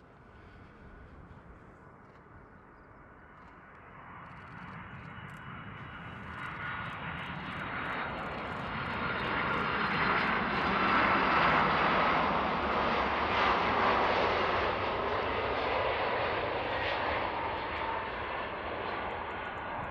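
Large jet airliner's engines on landing approach. A rushing noise with a high fan whine swells as the aircraft nears, is loudest a little past halfway, then slowly fades.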